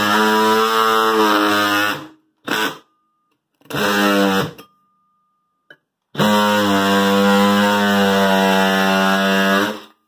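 Oscillating multi-tool buzzing as its blade cuts into the floor where a broken tile was chipped out, a buzz like a bunch of angry bees. It runs in bursts: about two seconds, a brief blip, about a second, then a longer run of some four seconds starting about six seconds in.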